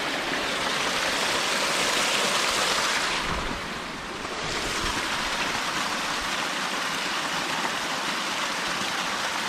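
Rushing water of a mountain creek cascading over rocks, a steady hiss that eases briefly about three and a half seconds in, then carries on.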